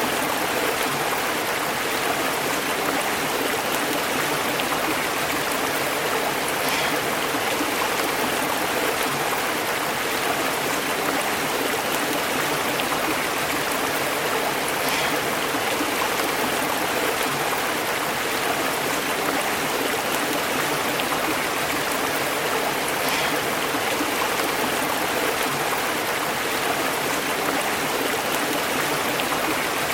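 A stream burbling over rocks, a steady rush of running water with a faint splash about every eight seconds.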